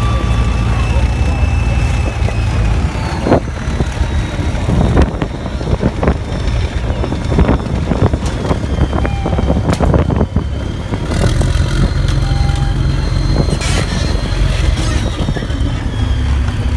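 Tracked armoured vehicles, among them a British Challenger main battle tank, driving past with a steady low engine rumble and the clatter of steel tracks, with many sharp knocks through the middle.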